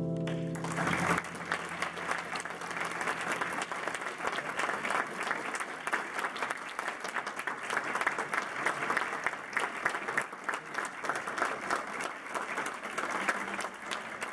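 The last chord on a digital stage piano dies away within the first second, then an audience applauds steadily with dense clapping.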